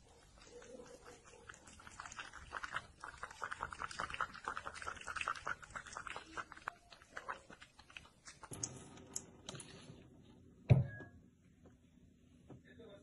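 A kitten licking a clear container up against it: a fast run of wet clicking licks lasting several seconds. A single loud thump follows near the end.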